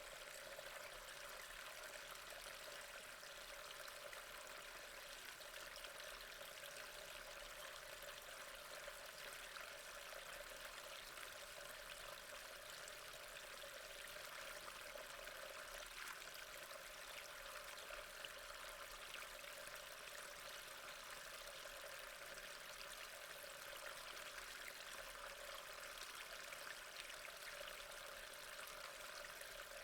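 Water running steadily through a storm drain.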